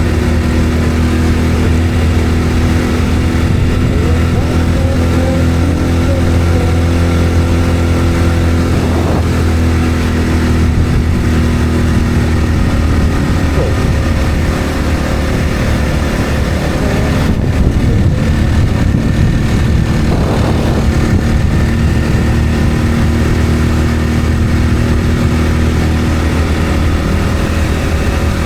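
Engine and road noise of a vehicle on the move, a steady low drone that holds an even pitch with no big changes in speed.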